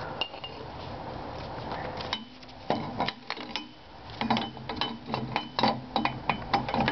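Black iron burner pipe with a brass fitting clinking and knocking against the foundry's steel frame as it is held in place. A run of sharp metallic clicks and knocks, sparse at first and coming quickly in the second half.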